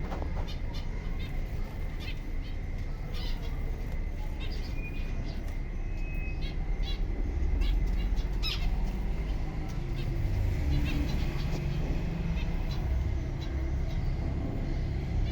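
Zebra finches chirping: many short, scattered calls from several birds, over a steady low rumble.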